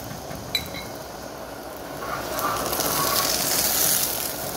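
A besan roti sizzling on a hot tawa, the hiss swelling for a couple of seconds as a spatula presses it down. A short metal clink of the spatula on the tawa comes about half a second in.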